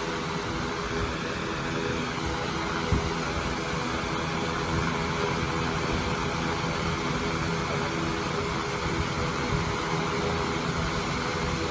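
Electric fans running steadily, an exhaust fan and a circulating fan: a constant motor hum under a rush of moving air.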